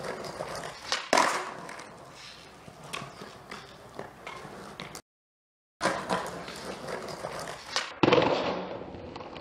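Skateboard on concrete: wheels rolling, with sharp clacks and knocks of the board. About eight seconds in comes the loudest clack, the board landing a frontside full cab, and the wheels roll on and fade. A brief dead silence falls a little past halfway.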